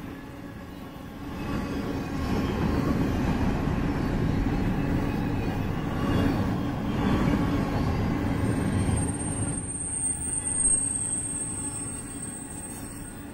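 Container cars of a fast intermodal freight train rolling past, a steady rumble of steel wheels on the rails. A thin, high-pitched whine comes in about two-thirds of the way through.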